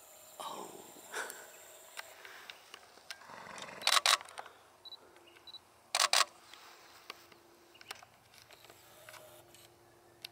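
Camera handling noise: sharp knocks on the camera body, two close together about four seconds in and two more about six seconds in, with softer rustling between them.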